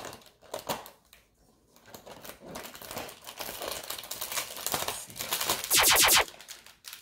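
The cardboard door of an advent calendar box is pried open and a small plastic bag of LEGO pieces is pulled out. Scattered clicks and rustling build up, and the loudest part is a brief, rapid crinkling rattle near the end.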